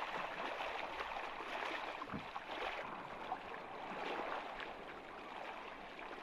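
Marsh water sloshing and splashing irregularly as a person wades through it.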